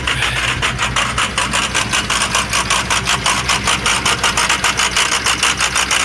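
Ford 6.0-litre Power Stroke V8 diesel running stuck at a high idle, with a rapid, even clatter and an audible miss: the sign of a failed lifter in an engine that is shot.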